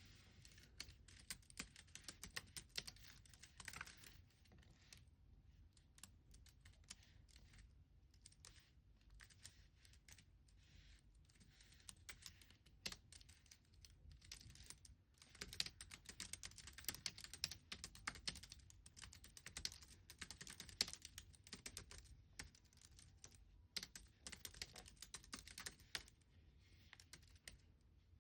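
Soft typing on a computer keyboard: quick runs of keystrokes in bursts, broken by pauses of a second or two.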